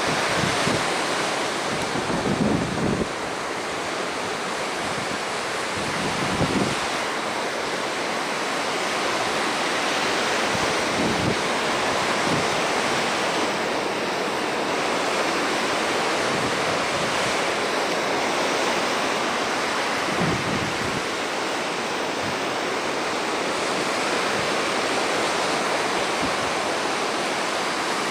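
Ocean surf: waves breaking and whitewater washing ashore in a steady rush, with wind gusting on the microphone a few times.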